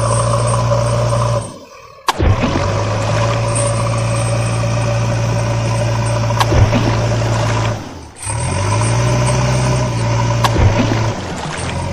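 Truck engine sound running at a steady idle. It cuts out twice and comes back each time with a short rev, with a couple of sharp clicks in between.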